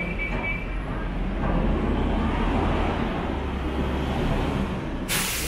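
Street traffic: a vehicle engine running close by with a steady low rumble over the general street noise, and a sudden loud hiss near the end.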